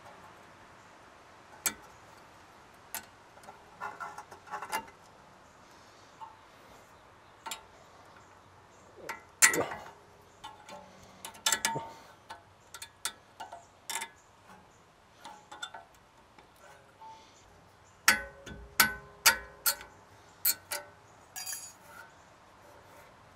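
Sharp metallic clicks and clinks, in scattered bursts, some with a brief ring: steel brake pad abutment clips being pried out of a pickup's rear caliper bracket with a small screwdriver and new clips snapped into place.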